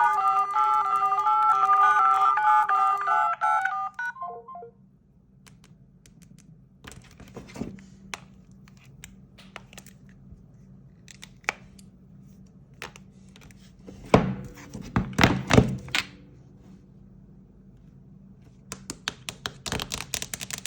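A Samsung Galaxy phone's ringtone plays a melody of repeated notes and stops about four seconds in. Then come scattered clicks and knocks, with a cluster of louder thumps midway and a quick run of clicks near the end.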